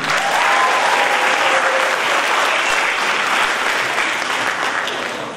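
Audience applauding, a dense wash of many people clapping that tapers off near the end.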